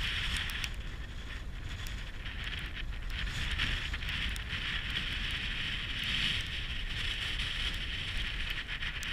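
Strong wind buffeting the microphone: a low rumble under a steady rushing hiss, swelling and easing a little.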